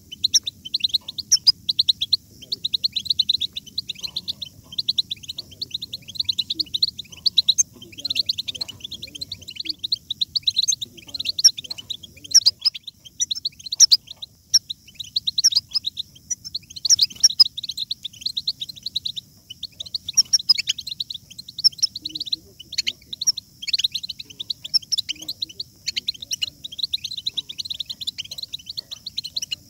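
European goldfinch song: a fast, unbroken stream of twittering chirps and short trills.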